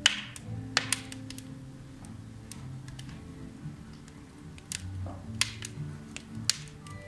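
Firewood crackling in a wood-burning fireplace, with sharp irregular snaps and pops, a loud one right at the start and others about a second in and near the end, over soft background music.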